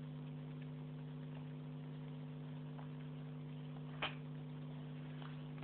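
Faint steady low hum of room tone, with one faint click about four seconds in.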